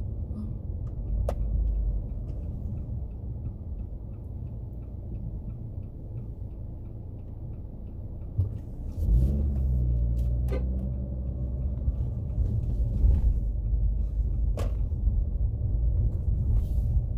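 Car cabin sound: steady engine and tyre rumble of a car driving slowly, with a faint turn indicator ticking about three times a second for the first half. About nine seconds in the engine note rises and gets louder as the car accelerates.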